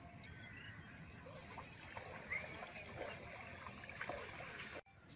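Faint water sloshing and splashing from wading in a shallow flooded field, with a few bird chirps. The sound drops out briefly near the end.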